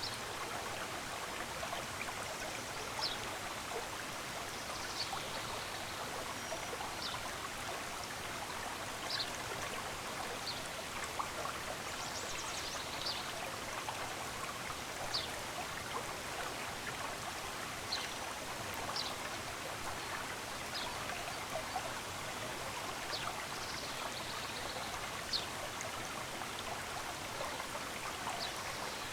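Stream water running steadily, with short high bird chirps every couple of seconds.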